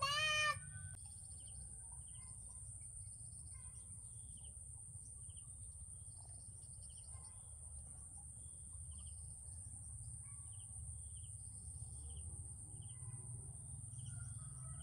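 Countryside ambience: a steady high insect drone, short chirps repeating about once a second, and a low rumble underneath. A brief high call sounds right at the start.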